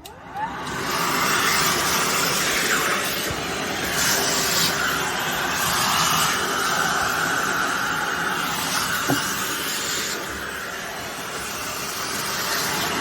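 Miele Triflex HX2 Pro cordless vacuum, set up as a handheld, switching on with a short rising whine as its motor spins up, then running with a steady rush of suction.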